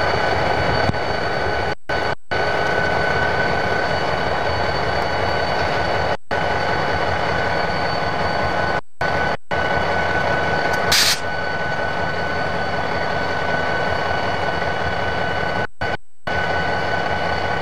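Diesel freight locomotives running close by: steady, loud engine noise with a steady high whine. A short hiss comes about two-thirds of the way through, and the sound drops out completely for a moment several times.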